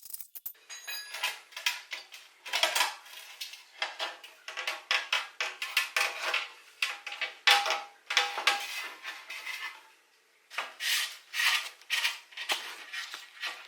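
Metal parts and tools being handled: irregular clinks, clatters and scraping, with a short pause about ten seconds in.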